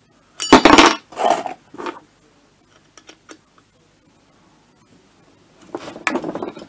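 Metal clatter from handling the casing and parts of a two-stroke moped engine being dismantled: a loud clank with a brief metallic ring about half a second in, a few lighter knocks and small ticks, then another clatter near the end.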